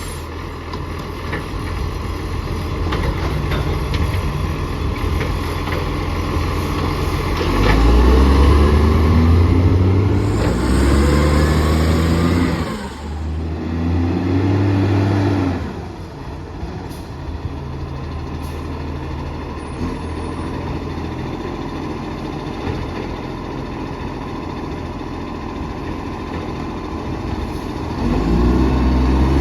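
Recycling garbage truck engine with an exhaust leak, idling and then revving up in a few surges partway through before dropping back to idle. It revs again near the end. A short air hiss comes during the first revs.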